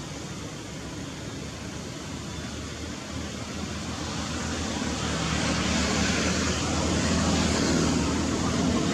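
A motor running and growing steadily louder from about four seconds in, with a low hum under a broad rushing noise.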